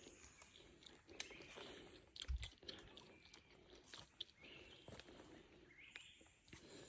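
Near silence: faint outdoor ambience with scattered soft clicks and one dull low thud about two seconds in.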